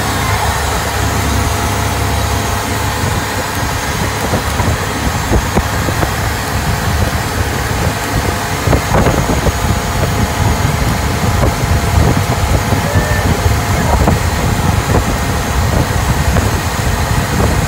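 Outrigger boat's engine running steadily under way, with water rushing and splashing along the hull and outrigger.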